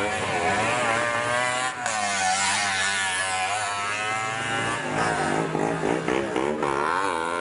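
Small engines of racing auto-rickshaws (tuk-tuks) revving hard, their pitch rising and falling over and over.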